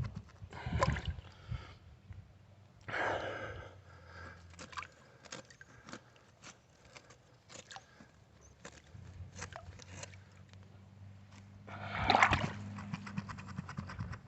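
Stones clicking and scraping in a creek bed as a glass bottle stuck there is dug at and worked loose, with a few louder bursts of water splashing.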